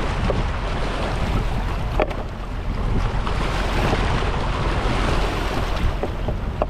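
Small sea waves washing and splashing over shoreline rocks, with strong wind buffeting the microphone.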